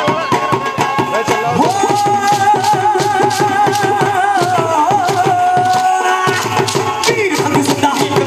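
Punjabi bhangra folk music: a fast, steady drum beat, with a long wavering held note over it from about two seconds in to about six seconds in.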